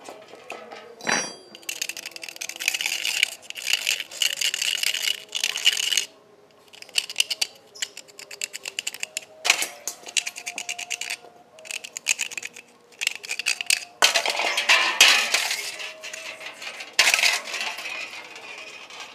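Metal engine parts being scraped and scrubbed, in runs of fast strokes broken by short pauses, with sharp metallic clinks and rattles.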